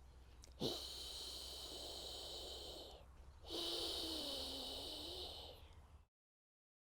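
A woman's long, breathy exhaled healing sound for the triple burner, a soft 'herrr' carried mostly on the breath. Two long breaths are heard; the second has a faint voiced tone that wavers. It cuts off to silence about six seconds in.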